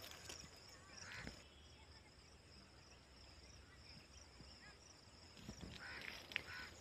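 Quiet field ambience: a steady high insect drone, with faint rustling footsteps in dry leaf litter about a second in and again near the end.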